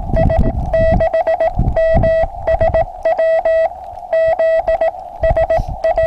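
Morse code (CW) sidetone from an amateur radio transceiver: a steady mid-pitched beep keyed on and off in quick dits and dahs over a band of receiver hiss. Rain water on the Morse key's contacts is adding stray dits and dahs to what is sent.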